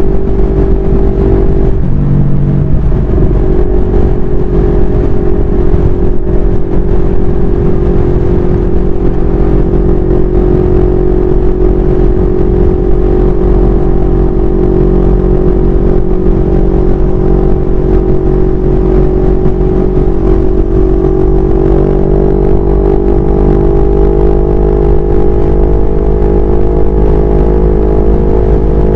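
CFMoto 400NK's parallel-twin engine running at highway cruising speed. Its note dips briefly about two seconds in and rises slightly over the last several seconds. A constant low wind rumble on the microphone runs underneath.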